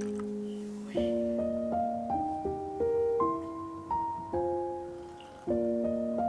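Background piano music: a slow, gentle melody of soft notes and chords.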